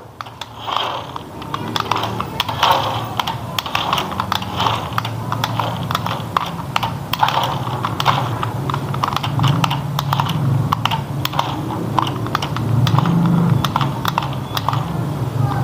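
Toy RC dump truck driving on a wooden tabletop: its small single-speed electric motor and gearing run with a low hum that swells at times, over a steady stream of small, rapid clicks.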